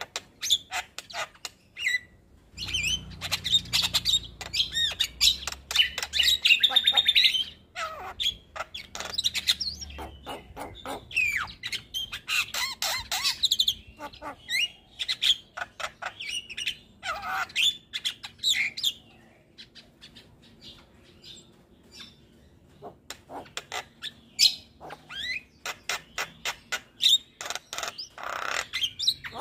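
Javan myna singing in full voice: a fast, varied run of whistles, harsh squawks and rapid clicking notes. About two-thirds of the way through it thins to scattered clicks, then picks up again.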